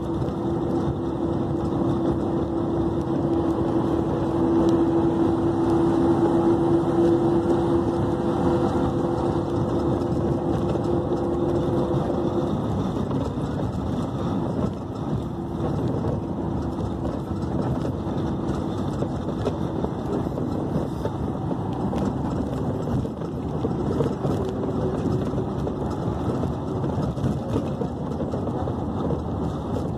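Interurban bus running at highway speed, heard from inside the passenger cabin: steady engine and road noise. A steady hum sits over the rumble for the first twelve seconds or so, then fades.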